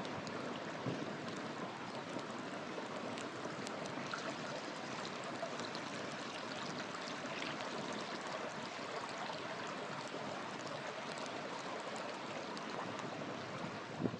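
Campfire burning with a steady rushing hiss and faint, scattered crackles.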